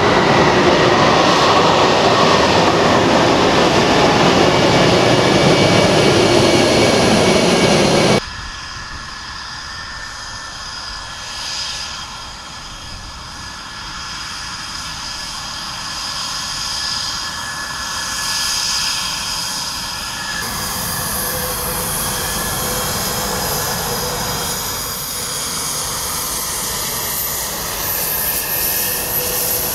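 F-22 Raptor's twin F119 turbofan jet engines running as the fighter taxis. A loud close roar for about eight seconds, then a sudden cut to a quieter, steady turbine whine with high whistling tones that shift again about twenty seconds in.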